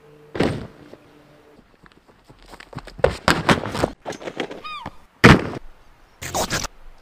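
A run of heavy thuds from a body slamming into padded foam crash mats and a striking bag: a loud one about half a second in, a cluster around three to four seconds, and another loud one just after five seconds. A brief squawk-like call comes between them.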